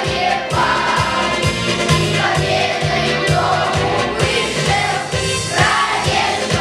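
A class of young schoolchildren singing together as a choir over a recorded backing track with a steady beat.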